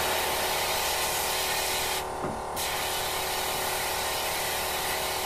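Sandblast cabinet nozzle blasting a mix of steel shot and split shot against a cast-aluminum gas cap: a steady hiss of air and shot, cut off briefly about two seconds in before it resumes.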